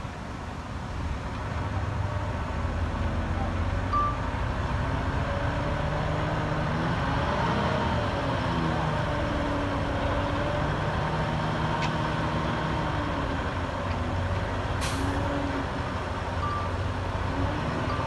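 Heavy diesel earthmoving machinery working, its engine note rising and falling under load through the middle, with a couple of short beeps and a brief air hiss about 15 seconds in.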